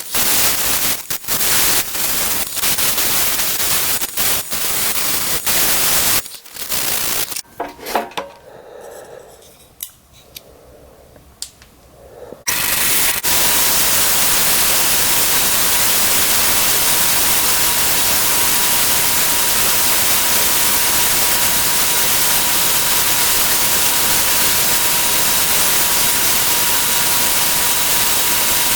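Wood lathe turning butternut, a chisel cutting the spinning wood with irregular scraping for the first several seconds. The cutting drops away about a third of the way in, and from about halfway a loud, even hiss takes over.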